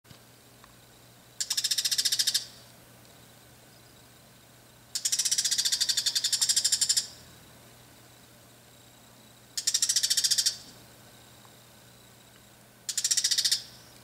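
Bull-headed shrike giving its harsh threat and alarm call: four bursts of rapid, high-pitched chattering notes, the second one longest, sounding like flint being struck.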